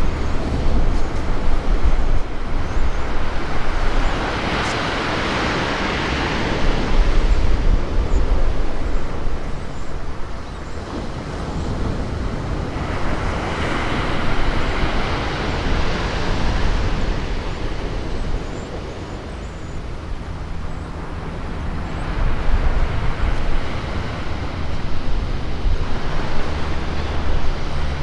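Sea waves breaking and washing up a sandy beach, the surf swelling and fading three times, about every eight to nine seconds, with wind buffeting the microphone.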